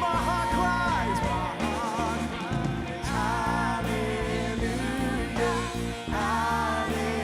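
Live gospel worship song: singers holding long, wavering notes over a full band with drums and bass.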